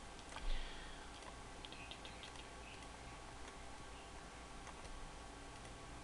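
Faint computer mouse clicks over a low steady background hum, with one short louder knock about half a second in and a small cluster of clicks about two seconds in.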